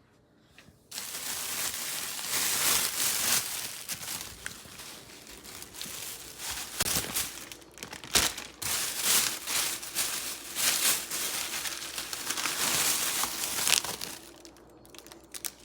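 Packaging crinkling and rustling as it is handled and opened, in irregular bursts with a few sharp crackles, starting about a second in and easing off near the end.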